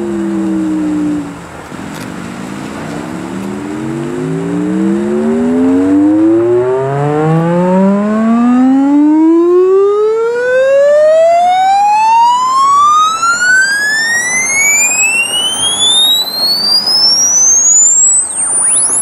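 A Realistic SCR-3 boombox's speakers playing an electronic tone with overtones. It falls briefly, then rises steadily in pitch from low to very high over about seventeen seconds.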